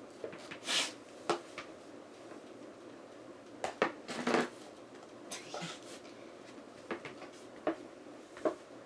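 Scattered light clinks, taps and brief scrapes of utensils against small bowls, with two short scraping sounds about a second in and around four seconds in, as slime mixture is spooned and stirred.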